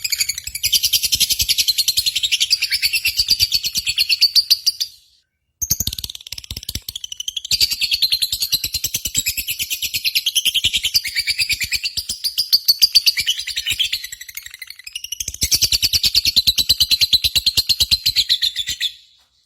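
Small bird singing a long, fast chattering song of high chirps in two long bouts, broken by a short pause about five seconds in, as a recorded song for training lovebirds.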